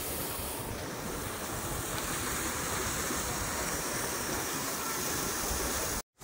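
Steady wind rushing and buffeting on the microphone, over faint open-air street ambience. The sound drops out completely for a moment near the end at a cut.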